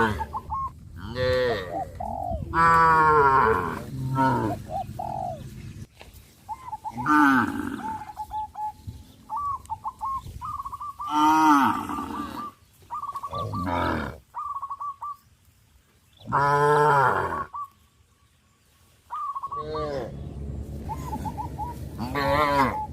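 Cattle mooing again and again, about seven loud calls spread out with pauses between them. Short, repeated bird notes sound in the gaps.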